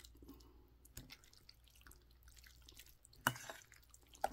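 Metal spoon mixing saucy bibimbap in a metal bowl: soft wet squishing with small clinks of spoon on bowl. Two sharper clinks come near the end.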